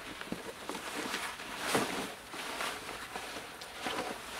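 MindShift Rotation180 Pro camera backpack being shouldered: nylon straps and pack fabric rustling and rubbing against a jacket as the straps are pulled on and adjusted, with scattered soft clicks and one louder scrape a little under two seconds in.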